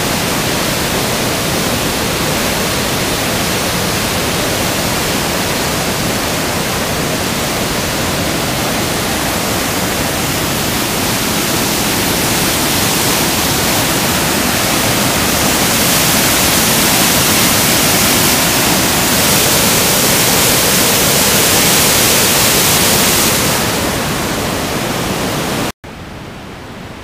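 Floodwater pouring over a hydro dam and churning in the white water below it: a loud, steady rushing that swells for a stretch in the middle. Near the end it cuts off abruptly to a quieter, more distant rush of the flooded river.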